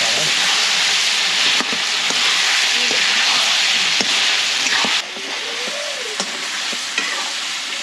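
Pork pieces frying in oil and spice paste in a black iron wok, sizzling steadily while a wooden spatula stirs and scrapes through them, with an occasional knock against the pan. The sizzle grows a little quieter about five seconds in.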